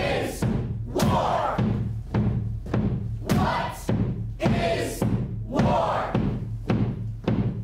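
A steady beat of heavy thumps, a little under two a second, with a group of voices calling out together between the beats, over a steady low hum.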